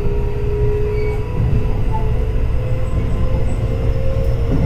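Keio 8000 series train's Hitachi IGBT-VVVF inverter and traction motors whining in a few steady tones that rise slowly in pitch as the train gathers speed. Under them is the steady rumble of wheels on rail, heard from inside the passenger car.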